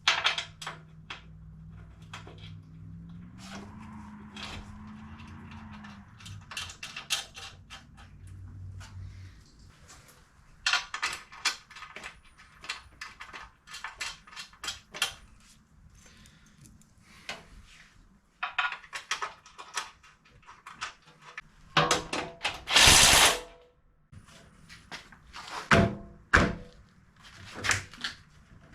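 Small metal hardware clicking, knocking and rattling as square nuts and bolts are handled and fitted into a winch's mounting slots, with a low steady hum under the first several seconds. About two-thirds of the way in comes one loud, noisy burst lasting about a second and a half.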